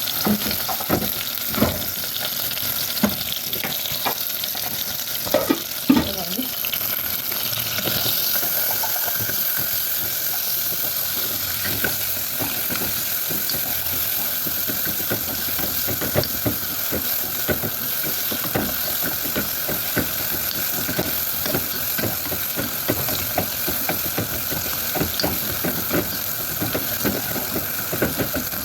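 Chopped onions frying in olive oil in a pan: a steady sizzle, with a utensil knocking and scraping against the pan as they are stirred, the knocks most frequent in the first several seconds.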